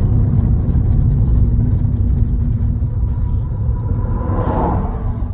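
Steady low rumble of a running engine, with a brief rushing swell about four seconds in.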